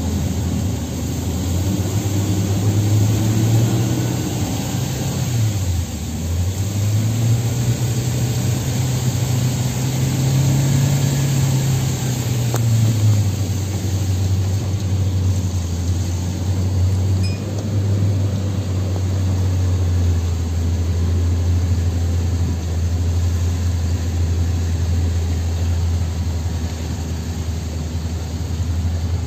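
Toyota Noah 4WD minivan's engine heard from inside the cabin while driving on a muddy, waterlogged dirt road. The engine note rises and falls twice over the first dozen seconds or so, then holds steady.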